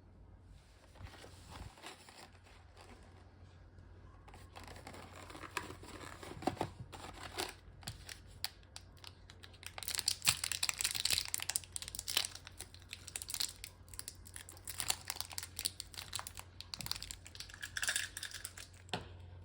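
Crinkling and rustling of wrapping material being handled, a dense run of small crackles that grows busier and louder about halfway through. A faint steady low hum lies underneath.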